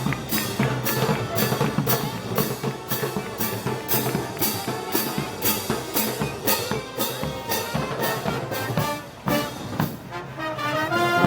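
Brass band playing festival march music with a steady drum and cymbal beat. About nine seconds in the beat drops out and held brass notes sound.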